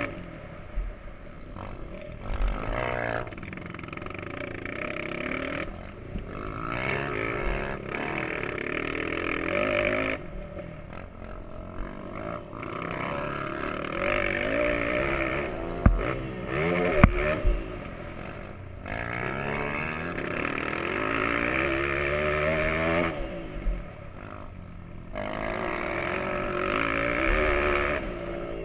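Motocross bike engine heard from onboard, revving up and easing off again and again as the throttle is opened and closed, with two sharp knocks a little past the middle.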